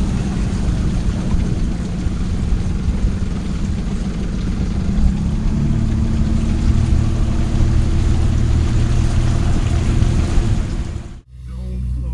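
Outboard motor of a small runabout boat running under way, with a steady rush of wind and water noise; the engine note shifts about halfway through, and the sound cuts off suddenly near the end.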